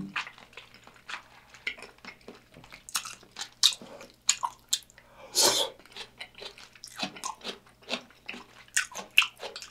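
Close-miked chewing of kimchi udon with wet mouth clicks and smacks in quick, irregular succession, and one longer, louder mouth sound about halfway through.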